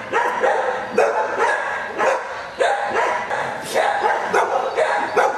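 Several shelter dogs in wire kennel runs barking and yipping, short barks overlapping several times a second without a break.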